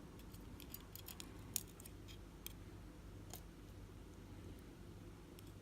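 Faint, scattered light metallic clicks and ticks of small parts being handled while springs are loaded into a padlock, most of them in the first couple of seconds, with the sharpest click about a second and a half in.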